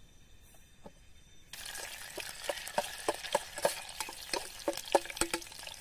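Chopped garlic sizzling in hot oil in an aluminium camping pot, starting suddenly about a second and a half in, with a spoon clicking and scraping against the pot as it is stirred.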